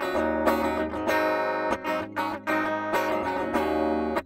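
Schecter Hellraiser V-1 FR electric guitar played on its active EMG bridge pickup with a clean tone: chords strummed and picked, with short breaks between phrases.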